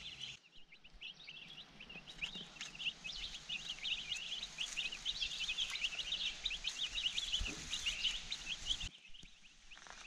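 A pen full of young meat-bird chicks peeping: many short, high cheeps overlapping at a quick pace. The peeping stops abruptly near the end.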